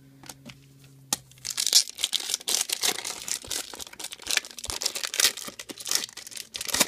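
A foil trading-card pack being torn open and its wrapper crinkled in the hands. The dense crackling starts about a second and a half in, and there is a sharp snap near the end.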